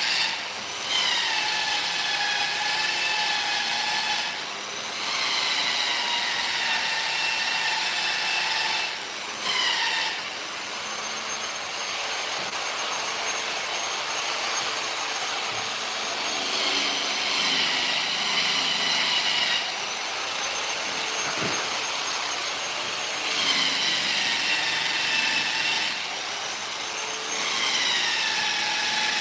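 Electric power tool working wood, its motor whining in runs of a few seconds with short breaks between them. The pitch falls at the start of several runs, then holds.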